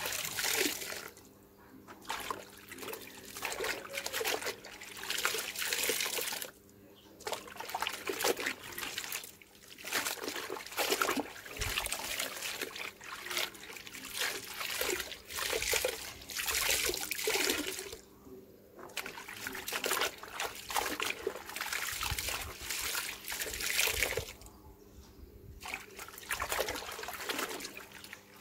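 Cloth napkins being hand-washed in a plastic tub of soapy water: water splashing, trickling and dripping as the wet cloths are kneaded, wrung and lifted out. It comes in irregular bouts, with a few brief pauses.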